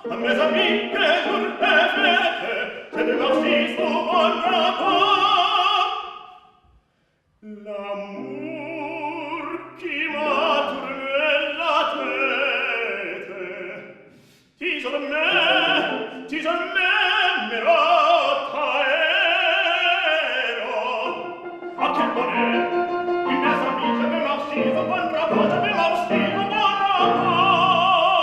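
Operatic singing with strong vibrato, in three excerpts edited together: the first fades out about seven seconds in, and the third starts abruptly about halfway through.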